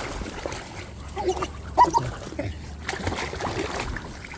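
Dogs wading through shallow seawater, splashing and sloshing, with a couple of short, sharper sounds near the two-second mark.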